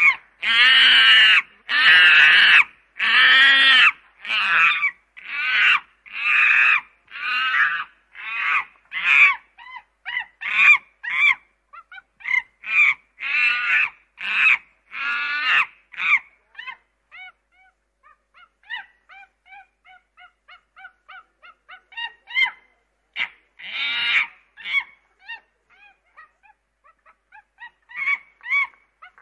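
Ducklings peeping: loud, repeated calls about one a second for the first half, then softer, quicker short chirps with a few louder calls among them.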